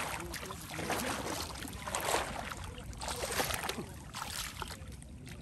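Water sloshing and splashing in uneven surges.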